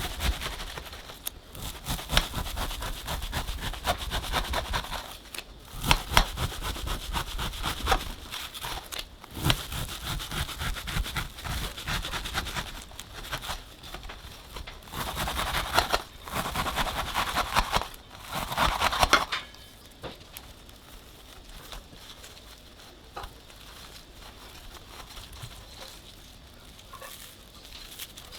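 Hands pulling apart and rubbing strands of shredded kadayıf pastry: a dense, dry crinkling and crackling in clumps that eases to a faint rustle about nineteen seconds in.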